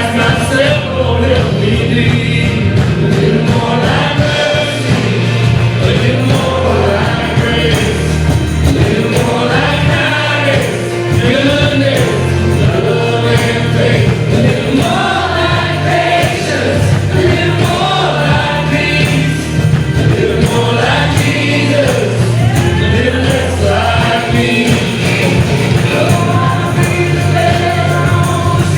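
Gospel worship music: a band playing with a choir or group of singers, a steady bass line under the voices.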